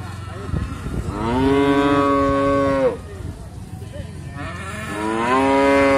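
Young Limousin bull mooing twice, two long calls of about two seconds each, the second starting about halfway through.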